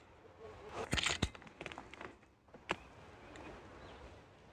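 Side-lever action of a short AGN Vixen 5.5 mm PCP bullpup air rifle being worked between shots: a quick cluster of clicks with a short rasp about a second in, then a single sharp click near the middle.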